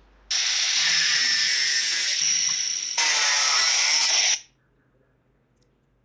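Angle grinder with an abrasive cut-off wheel cutting through a steel bar: a loud, high grinding hiss over the motor's steady whine for about four seconds, jumping abruptly about three seconds in, then cutting off suddenly.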